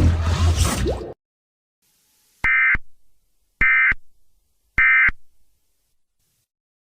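A loud burst of noise with a low hum cuts off about a second in. Then come three short, identical bursts of warbling two-tone digital data about a second apart: the Emergency Alert System end-of-message code that closes an alert.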